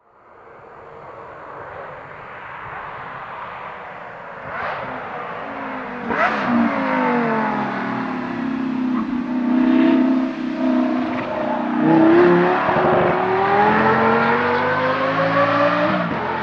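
Decatted (catalytic converters removed) Lamborghini Gallardo Superleggera V10 on track, its exhaust growing from faint to loud as the car comes closer. The engine note falls about six seconds in as the car lifts off, breaks sharply around twelve seconds, then rises steadily as the car accelerates away.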